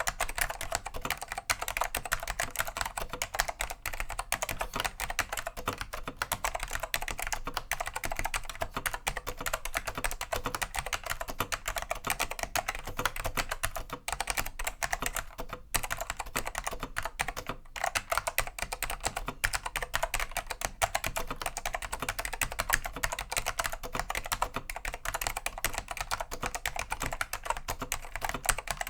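Continuous fast typing on a Dell AT101 keyboard with pine Alps SKCM Black tactile switches: a dense stream of clicky keystrokes with only brief pauses, cleaned switches unlubed and stabilizers greased.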